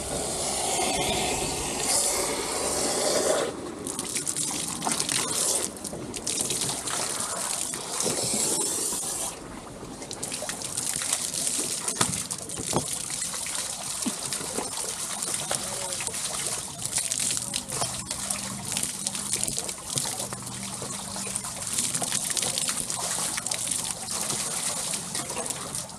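Water trickling and gushing around hoses at a portable water pump, with a few knocks from the gear being handled. The water is being run through the discharge pipe to prime the pump.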